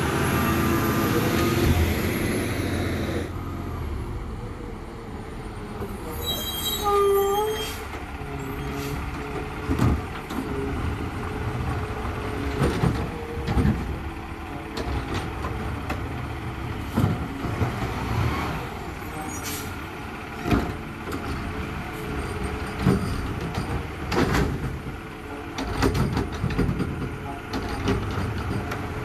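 Garbage truck at work: the engine runs loudest in the first three seconds, with a high whine falling away. A brief squeal comes about seven seconds in, and sharp metal knocks and clanks recur through the rest.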